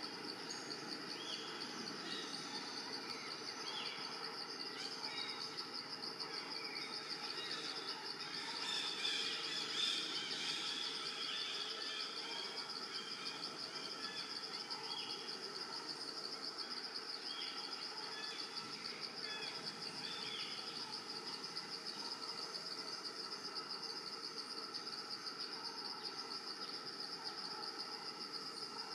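Steady, high-pitched insect chorus with a fast pulsing trill, over scattered short chirping calls that grow busier about nine to eleven seconds in.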